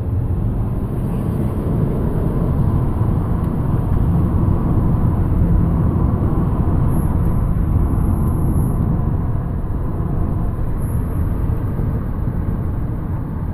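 Steady low road and drivetrain rumble inside the cabin of a moving 2010 Chrysler Sebring.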